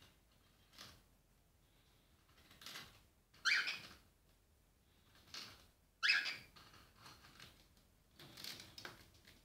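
Cockatiel pecking and crunching pieces of rusk in a steel food bowl: about half a dozen short, sharp crunches and taps, the loudest about three and a half and six seconds in.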